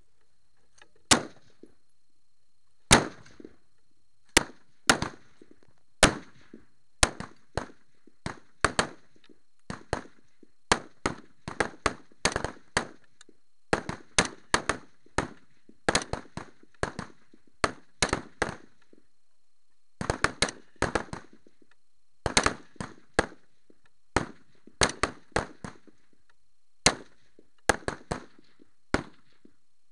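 Rifle shots from many shooters firing along a highpower match firing line. There are dozens of sharp cracks at uneven intervals: a few widely spaced shots in the first seconds, then a denser string, at times several a second.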